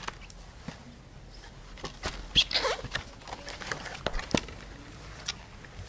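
Handling of a pop-up book: scattered soft clicks and paper rustles as a stiff card page is turned and the paper cut-out unfolds.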